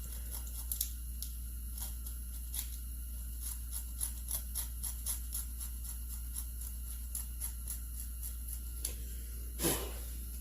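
Scraping caked-on crud off the bottom of a McCulloch SP81 chainsaw's magnesium gas tank: a run of short, irregular scratches and ticks over a steady low hum, with a brief voice-like sound near the end.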